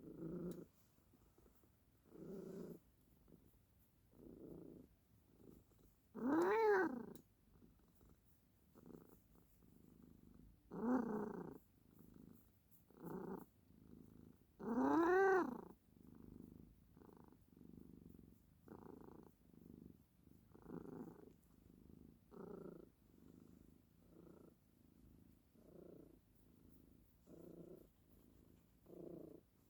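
Domestic cat purring in a regular rhythm, about one pulse a second, with two meows about six and fifteen seconds in, each rising and then falling in pitch.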